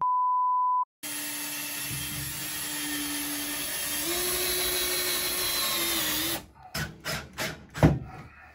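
A short electronic beep, then a cordless drill running steadily for about five seconds as it bores into the wall, its whine stepping up slightly in pitch partway through. Near the end come several knocks and clicks, one of them sharp and loud.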